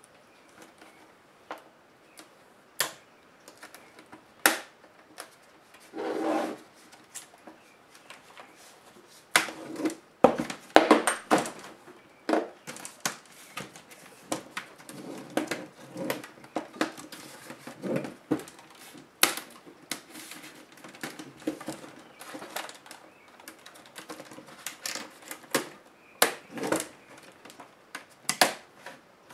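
Lenovo T500 LCD panel and its metal frame being handled: irregular clicks, taps and knocks of plastic and metal parts, with a denser run of louder knocks about a third of the way in.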